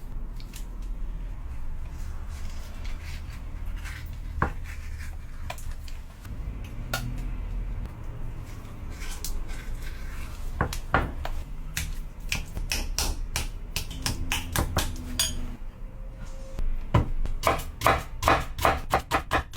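Kitchen knife cutting on a cutting board: scattered single cuts and taps, then near the end rapid, even chopping of about four to five strokes a second.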